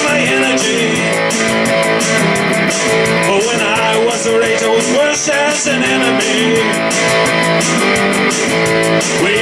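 Electric guitar strummed in a steady, even rhythm, playing a song.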